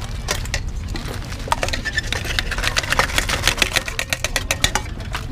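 A rapid run of clicks and clatter, densest in the middle few seconds, like a spoon working a salad in a bowl, over a steady low hum.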